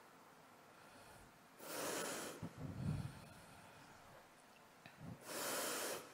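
A Quran reciter drawing two deep, audible breaths close to the microphone between phrases of a mujawwad recitation, one about a second and a half in and one near the end, with a short low sound just after the first.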